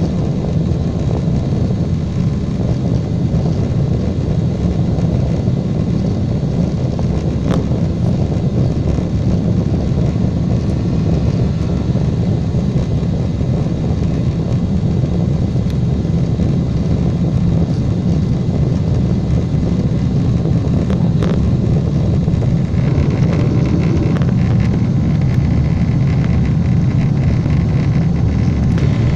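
Boeing 747 jet engines and rushing air making a steady, loud low rumble. It grows slightly brighter about two-thirds of the way through.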